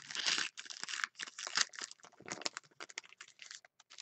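Trading-card pack wrapper being torn open and crinkled by hand: a dense run of crackling in the first second and a half, then sparser crinkles and clicks.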